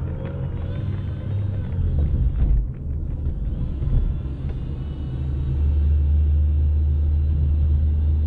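Car engine and road rumble heard from inside the moving car's cabin: a low drone that wavers in the first half and then holds steady.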